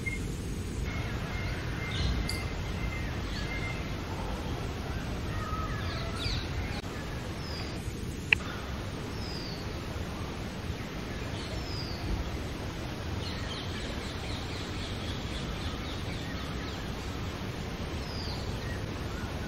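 Steady outdoor background noise with scattered faint, short falling chirps of small birds, and one sharp click about eight seconds in.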